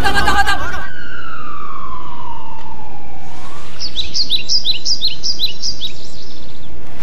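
A single falling tone glides steadily down over about two and a half seconds, like a siren winding down. Then a caged songbird chirps, a quick run of short high notes lasting about two seconds.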